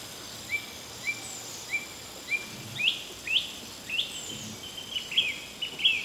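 A songbird singing a run of short, sharply rising chirps, about two a second, coming quicker toward the end, over a steady outdoor background hiss.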